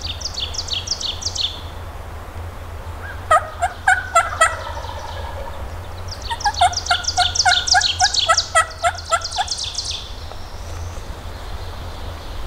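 Turkey calling: a quick run of about six notes about three seconds in, then a longer run of about a dozen evenly spaced notes, about four a second. Small birds chirp at the start.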